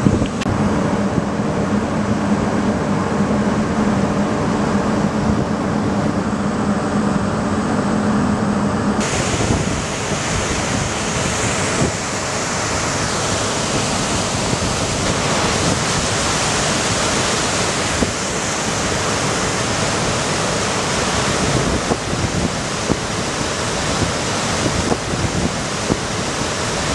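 Ferry running under way: a steady low engine hum over water noise. About nine seconds in it gives way to a loud, even rushing of the churning wake and wind buffeting the on-deck microphone.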